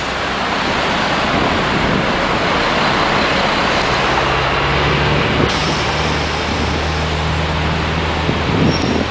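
Street traffic passing, with the rush of cars and diesel city buses going by; from about four seconds in a bus engine's low, steady drone joins it.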